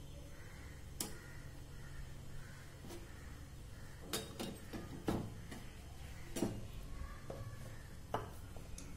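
Ghee melting in a hot iron kadhai: a low steady hum with about eight sharp pops and clicks scattered through it.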